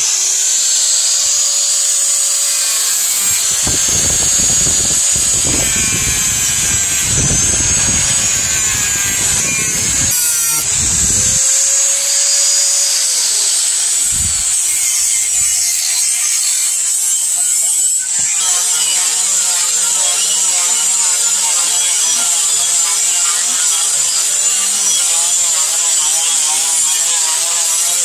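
Electric angle grinder running at speed with a steady high whine, grinding a steel knife blade in heavier spells during the first half. About two-thirds through, the sound changes as a sanding disc on the grinder works the blade with a steadier, wavering tone.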